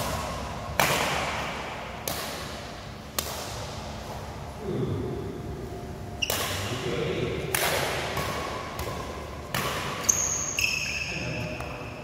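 Badminton rackets striking a shuttlecock during a rally: about six sharp smacks, one to three seconds apart, each ringing on in the echo of a large hall. Near the end, sports shoes squeak on the court floor.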